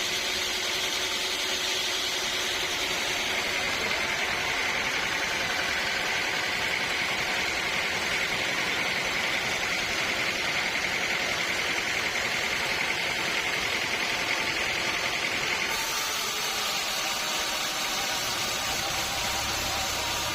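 Sawmill machinery running with a steady mechanical noise. A higher whine rides over it from a few seconds in until about three-quarters through, where the sound changes abruptly.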